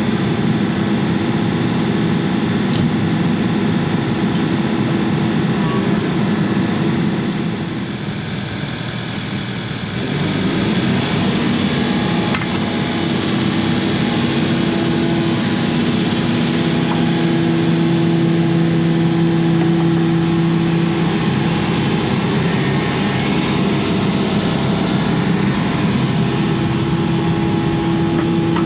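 Diesel engine of a piece of construction machinery running steadily, its pitch shifting every few seconds as the load changes, with a brief dip in loudness about eight seconds in.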